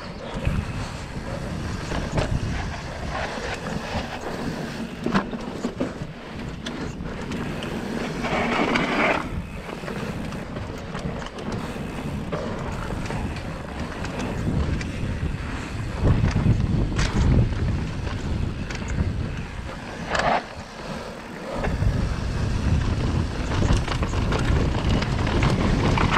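Mountain bike riding fast down a dirt trail: tyres rolling on the dirt and the bike rattling, with wind buffeting the microphone and occasional sharp knocks from the wheels hitting bumps.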